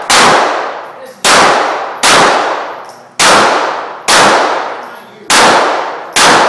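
Glock pistol firing seven shots at a steady, deliberate pace, about one a second, each loud crack trailing off slowly before the next.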